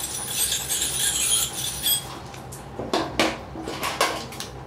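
Electric hair clippers shearing a dog's fur around a facial abscess, a crisp rasping crackle that stops about two seconds in. It is followed by several light clicks and clinks.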